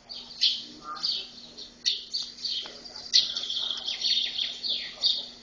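Small birds chirping in quick succession, short high chirps that crowd together into a dense twittering about halfway through. The birdsong is played back from a bird video.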